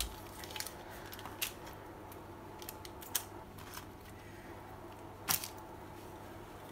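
Scattered small clicks and taps from hands laying sliced tomatoes and onion rings onto a paper-lined plate, the loudest a little after five seconds in, over a steady low hum.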